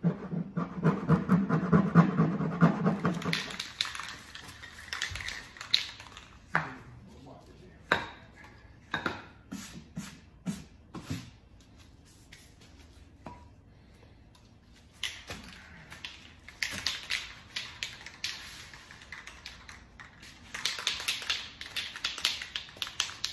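A cloth rubbed quickly back and forth over the plastic lid of an ice chest, a dense rhythmic scrubbing for the first few seconds. Then scattered clicks and knocks as metal spray-paint cans are handled. From about 15 s, bursts of fast rattling: the mixing ball clattering inside an aerosol spray-paint can being shaken.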